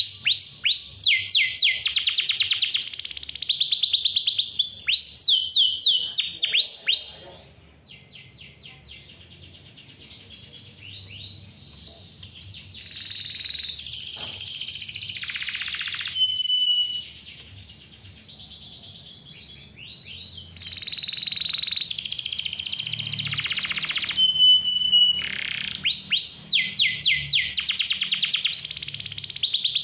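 Domestic canary singing: fast rolls of repeated high descending notes. About seven seconds in the song drops to quieter trills with short held whistles, and the loud rolls return near the end.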